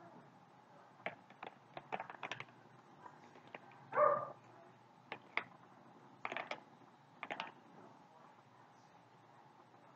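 Scattered light clicks and taps of plastic being handled: a feeding syringe and food containers. There is one short pitched squeak about four seconds in.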